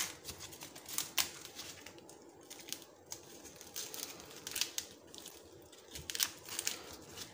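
Fresh green corn husks being torn and peeled off the cob by hand: irregular rustling and crinkling, with a few sharper rips.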